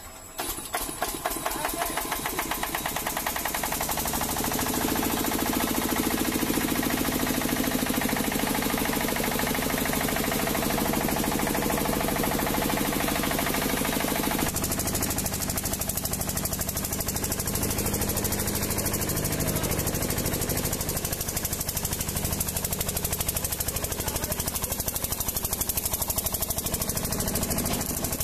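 14 hp single-cylinder diesel engine of a Prakash welding generator set, hand-cranked, catching right away and building up to its 1500 rpm running speed over the first few seconds. It then runs steadily with a fast, even knocking beat. About halfway through the sound changes abruptly to another steady diesel run.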